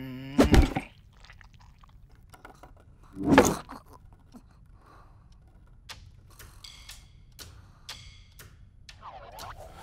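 Tired classroom students: a low groan trails off just after the start, then two short loud breathy sounds come about half a second and three and a half seconds in. Light clicks and scratches are scattered through the rest.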